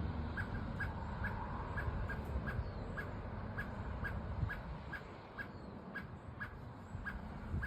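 A bird repeating short chip calls, a little over two a second, over a low rumble.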